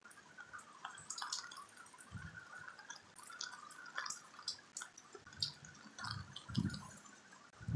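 Rain falling, with irregular drops dripping and tapping close by, and a few soft low thumps.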